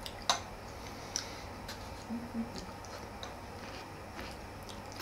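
Knife and fork clicking against a plate as food is cut: scattered light ticks, the sharpest about a third of a second in, over a low steady hum.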